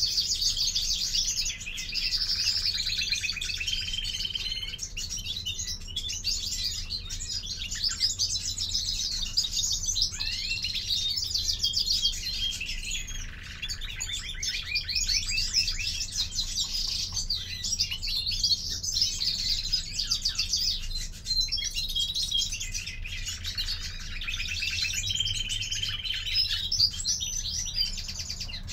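European greenfinch singing in long, continuous phrases of rapid twittering and trills.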